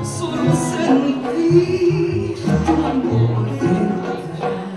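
Live Afro-Cuban-style song: a woman sings over two strummed acoustic guitars, with batá drums beating low strokes underneath.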